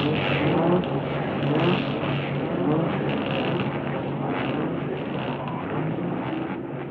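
A motor engine running, with short rising revs about once a second over a steady drone; it fades a little near the end.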